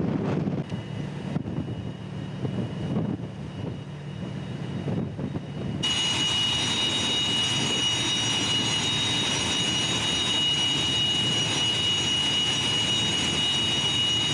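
Rumbling engine and wind noise. About six seconds in, this cuts abruptly to a loud, steady, high-pitched gas-turbine whine with several fixed tones over a rushing roar.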